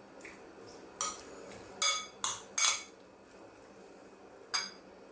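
Metal spoon stirring a chopped tuna salad in a bowl, clinking sharply against the bowl five times, with softer scraping between the clinks.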